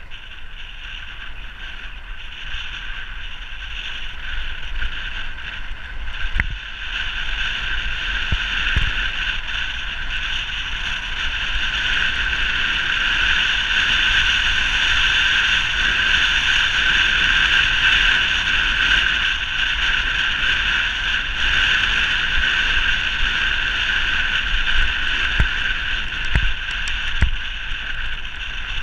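Wind rushing over the microphone of a camera on a bicycle speeding downhill, with a low rumble underneath. It grows louder over the first ten seconds or so as speed builds, then holds, with a few short low thumps.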